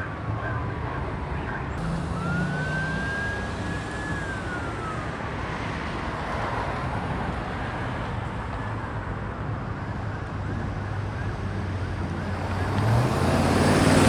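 Ambulance siren wailing: one slow sweep up, a hold, then a long fall in pitch, over steady vehicle and road noise. The noise grows louder near the end as a vehicle comes closer.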